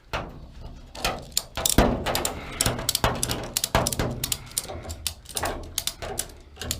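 Irregular clicks, knocks and clatter of hands moving and wedging parts into place to prop up a truck hood.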